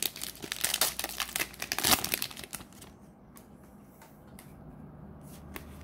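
Trading-card booster pack wrapper being torn open and crinkled by hand, a dense crackling rip for about the first two and a half seconds. After that it goes quiet, with a few faint clicks as the cards are handled.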